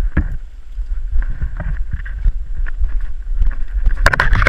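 Wind buffeting a body-worn GoPro's microphone with a steady low rumble, under irregular knocks and scuffs of a player walking; a denser burst of crunching and rustling about four seconds in.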